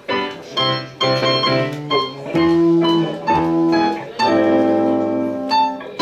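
Instrumental music led by a keyboard with an organ-like tone: held chords over a low bass, changing every second or so.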